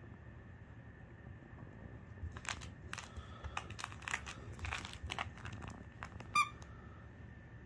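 Lhasa Apso puppy chewing and tossing a plush toy: a run of short rustles and crinkles starts about two seconds in. A little after six seconds the toy gives one short squeak, the loudest sound.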